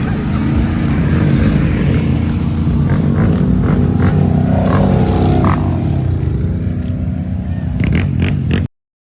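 ATV engine running under way, its pitch rising and falling as the throttle changes, over a heavy low rumble. The sound cuts off abruptly just before the end.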